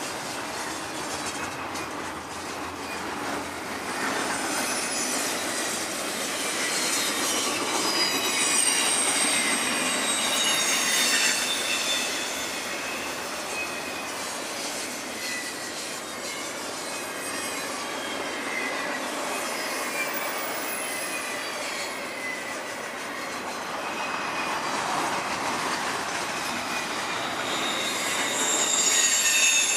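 Double-stack container well cars of a freight train rolling past on the rails with a steady rumble, their wheels squealing in high, wavering tones. It grows louder about a third of the way in and again near the end.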